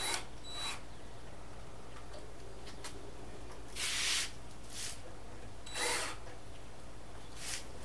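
Red cordless drill run in short bursts into a plywood camper wall panel, about six quick spurts, the longest and loudest about four seconds in, over a steady low hum.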